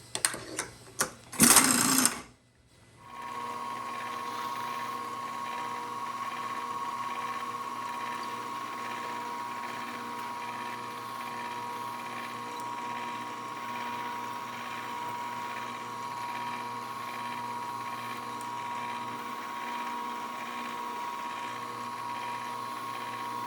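A few clicks and a loud knock, then a CNC milling machine's spindle running steadily with a high whine while it chamfers the drilled holes in the stand's base plate.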